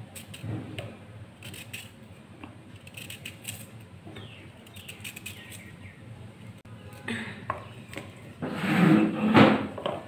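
A knife slicing raw green mango by hand, with light taps and clicks as the slices drop into a stainless-steel bowl. Near the end there is a louder clatter and rustle as slices are handled in the metal bowl.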